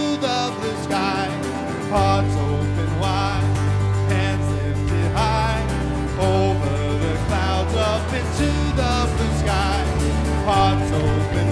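Country-style song: a singing voice over instruments, with a deep bass line coming in about two seconds in.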